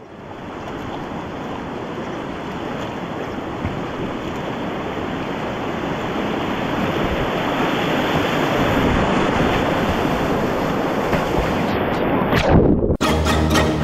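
Whitewater rapids of the Soča river rushing steadily, slowly growing a little louder. Near the end the rush changes abruptly to a rougher, closer sound with a low rumble of wind on the microphone.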